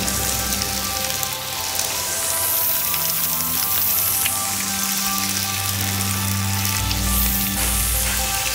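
Pieces of dried pangasius (khô cá tra) sizzling as they fry in hot oil in a pan, a steady hiss that swells and eases, over background music.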